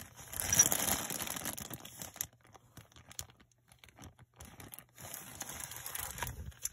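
Clear plastic zip-top bag crinkling as it is handled, in two spells: a louder one for the first couple of seconds and another near the end, with small scattered clicks between.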